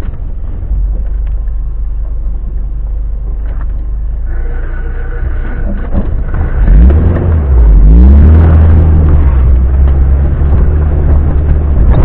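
Off-road car's engine heard from inside the cabin, running with a low steady drone, then revving up with a rising pitch a little past halfway and staying loud to the end. A few knocks from the vehicle come just before the rev.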